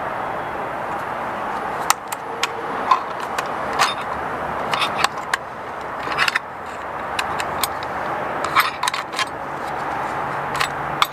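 Sharp clicks and small scrapes of an Allen key and a flathead screwdriver working the plastic end cap off a Mopar roof-rail mount, scattered irregularly, over a steady rushing background noise that swells and eases every few seconds.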